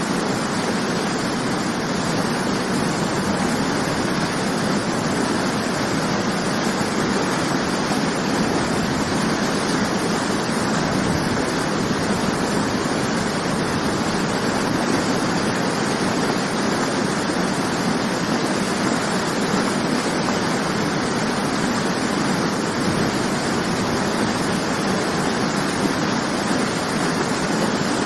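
Waterfall water falling and splashing in a steady, unbroken rush.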